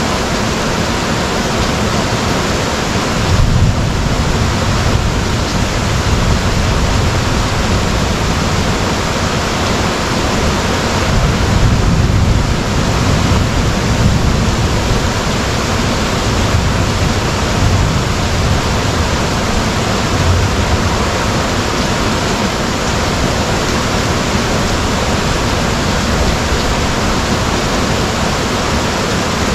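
Heavy rain pouring down in a thunderstorm, a dense steady hiss, with swells of low rumble about three seconds in and again around twelve seconds.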